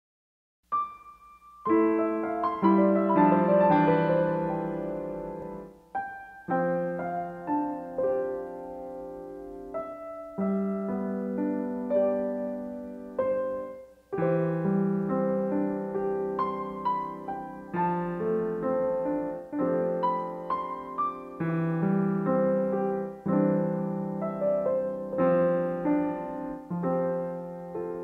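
Gentle piano music: struck chords and a slow melody whose notes ring and fade, beginning just under a second in, with short pauses between phrases.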